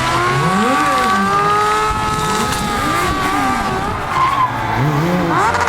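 Sport motorcycle doing a stunt-show burnout: a steady high tyre squeal, with the engine revved up and down several times.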